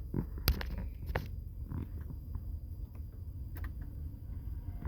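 Car cabin noise while driving: a steady low rumble of engine and road, with a few faint clicks and knocks.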